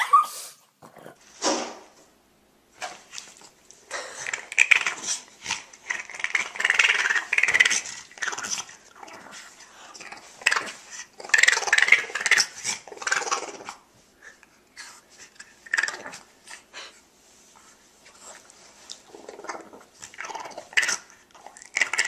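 A small dog 'talking': irregular bursts of grumbling, whining vocal sounds, thinning to short scattered calls past the middle.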